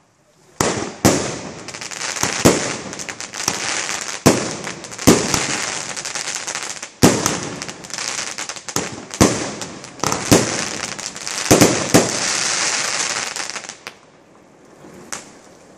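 A 10-shot firework cake of 30 mm shells firing: a series of sharp bangs, with a dense crackle from the bursting stars between them, which dies away about 14 seconds in.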